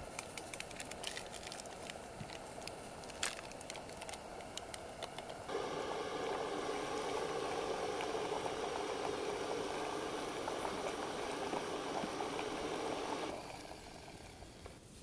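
Light rustling and a few sharp clicks as a drink-mix packet is handled over a mug. About five seconds in, this gives way to the steady rushing of a Jetboil stove's gas burner heating water, with the water bubbling toward a boil. The burner sound cuts off suddenly shortly before the end, as the stove is shut off.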